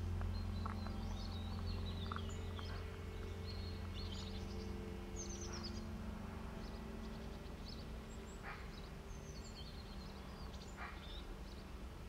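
Small songbirds chirping and trilling in short high calls, over soft, low sustained tones of background music that change chord about halfway through and slowly fade.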